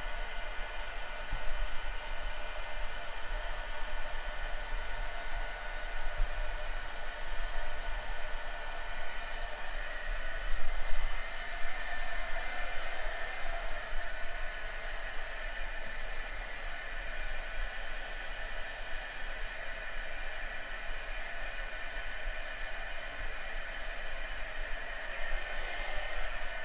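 Handheld craft heat tool (embossing heat gun) blowing steadily, a whirring blast of air with a faint steady whine, drying damp dyed rayon seam binding.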